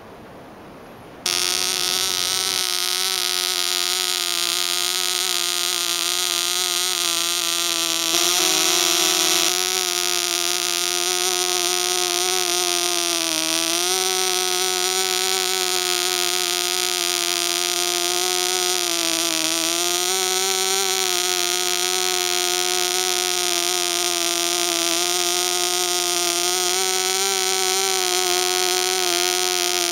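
AE 0.1cc model diesel, a tiny two-stroke fitted with a prototype throttle carburettor, running at high speed: a steady high-pitched buzz that starts abruptly about a second in. Its pitch wavers slightly a few times.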